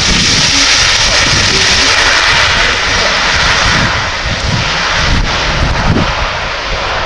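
Leonardo C-27J Spartan's twin Rolls-Royce AE 2100 turboprop engines and propellers running loud as the transport rolls down the runway after a short landing. The sound loses its sharp upper edge and eases after about four seconds as the aircraft moves away.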